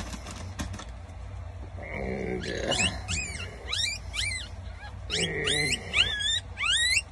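Newborn Shih Tzu puppy squealing in runs of short, high-pitched cries, starting about two seconds in and coming thicker and louder toward the end, as the cyst on its back is squeezed and wiped.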